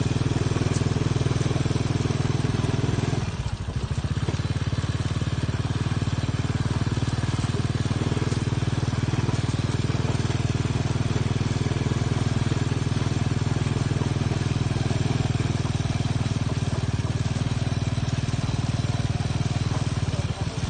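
Small motorcycle engine of a saleng (motorcycle sidecar) running steadily on the move, with a constant noisy rush over it. The engine dips briefly about three seconds in, then carries on.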